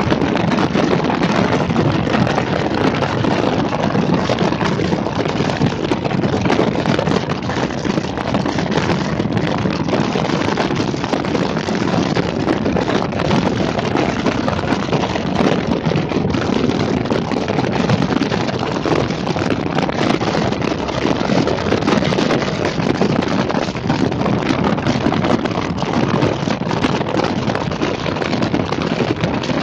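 Steady wind rushing over the microphone, mixed with the running noise of a moving vehicle, even throughout with no clear engine tone.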